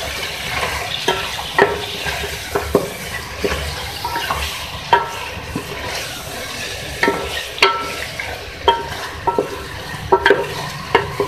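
Chicken pieces and ginger-garlic paste sizzling in hot oil in a metal pot while a wooden spatula stirs them, scraping and knocking against the pot about once or twice a second, some knocks leaving a brief metallic ring.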